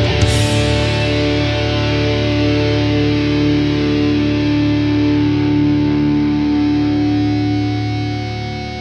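Heavy metal instrumental passage: a cymbal crash right at the start, then distorted electric guitar notes held and ringing, easing down in level near the end.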